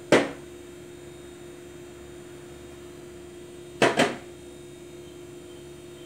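Kitchen utensils knocking against a mixing bowl: one sharp knock, then two quick knocks about four seconds in, over a steady low hum.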